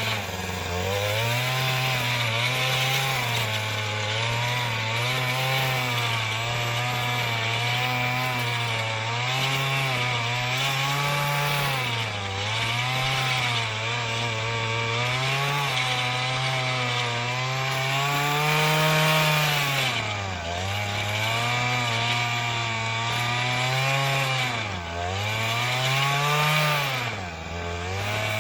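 Earthquake MC33 mini tiller's 33cc two-stroke engine running under load while tilling soil, its pitch rising and falling as the tines dig. It bogs down sharply three times in the last third and picks back up each time.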